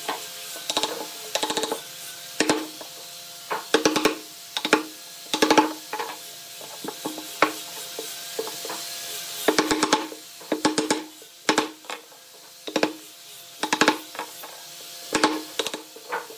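Wooden mallet striking a wood-handled bench chisel, chopping into a softwood beam. The knocks come irregularly, singly or in quick runs of two to four, each a hollow wooden clack.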